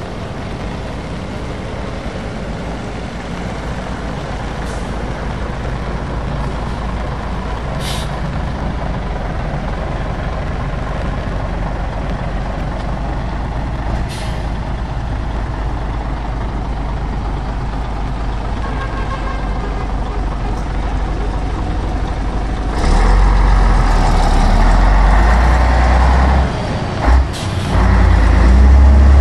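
An old Scania lorry's diesel engine running as it creeps forward, with short air-brake hisses about 8 and 14 seconds in. From about 23 seconds it passes close by, and the engine and its tyres on the wet road get much louder.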